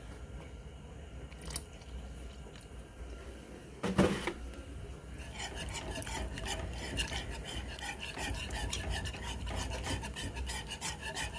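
A wire whisk stirring sausage gravy in a metal skillet, scraping and clicking rapidly against the pan from about five seconds in. A single sharp knock comes just before the whisking starts.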